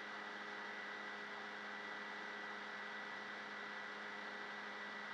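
Steady electrical hum and hiss of the recording chain, with a thin high whine above it.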